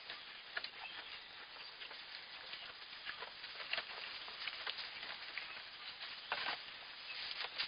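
Loose hay rustling and crackling under a newborn fainting goat kid's hooves as it steps about, in short irregular rustles with a louder one about six seconds in.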